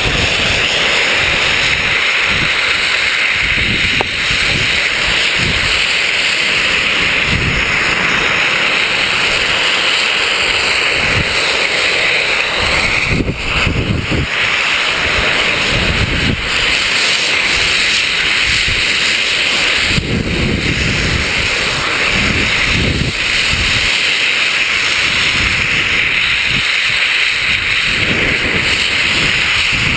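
Wind buffeting the camera microphone: a steady rushing hiss with irregular low gusts throughout.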